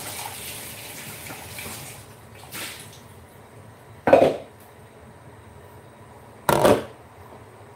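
Kitchen tap water running, stopping about two seconds in, then two loud clanks of a metal pot being handled.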